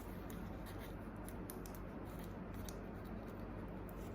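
Faint, scattered small clicks and crinkles from handling a sticker sheet and small plastic model parts by hand, over a steady low background hum.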